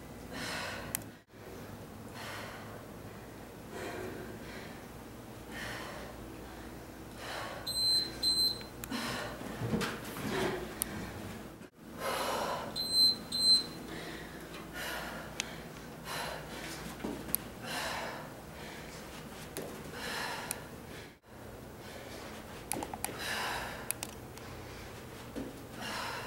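Heavy, rhythmic breathing of a woman exercising hard. An interval timer gives two short high beeps about a third of the way in, and two more near the middle.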